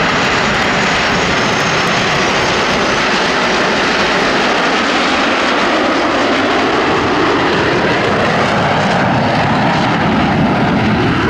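A formation of Aermacchi MB-339 PAN jet trainers flying overhead, their Rolls-Royce Viper turbojets making a loud, steady jet rush.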